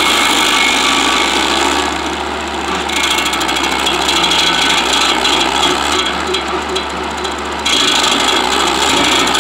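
Shaver SC-50 stump grinder's cutter wheel grinding into wood, a loud continuous rasping over the running machine. The grinding changes in strength about two seconds in and again just under eight seconds in.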